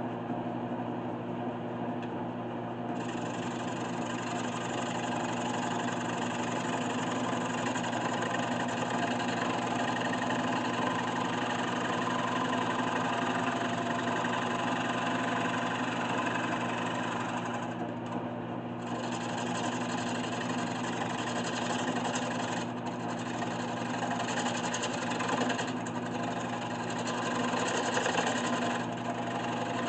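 1981 Delta 12-inch wood lathe running with a steady motor hum, while a hand-held turning tool cuts the spinning spalted maple blank. The hiss of the cut comes in about three seconds in and breaks off briefly a few times as the tool is lifted.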